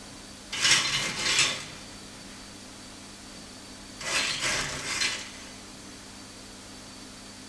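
Motor-driven trolley of a laboratory overhead crane running along its rail twice, each run lasting about a second, half a second in and again about four seconds in: two fast time-optimal moves to a new position. A steady hum runs underneath.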